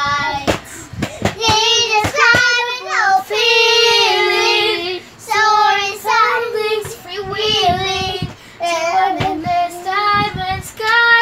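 Young children singing without accompaniment, with some long held notes.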